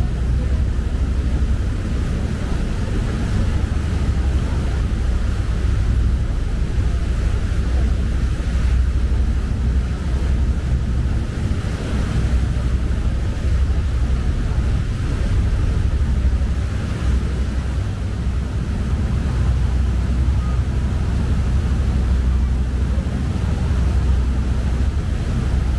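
Lake passenger boat under way: a steady low engine rumble with water rushing past and wind buffeting the microphone.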